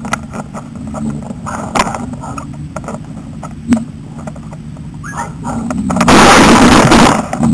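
Wire cable of a catch pole clicking and knocking at the pole-mounted camera while a caught black Labrador struggles in the loop. About six seconds in there is a loud, rough noise lasting about a second as the dog's head comes right up against the camera.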